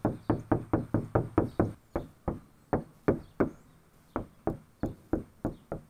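Knuckles knocking on the sheet-metal trunk lid of a 2018 Dodge Challenger in a knock test for panel resonance. A quick run of knocks on the bare lid comes first, then sparser knocks with gaps, and more knocks after 120-mil sound deadener has been added to the lid's pockets, which makes a nice difference.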